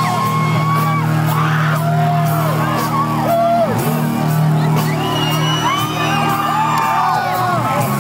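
Live rock band playing loudly over a concert PA, heard from inside the crowd, with people shouting and whooping over the music.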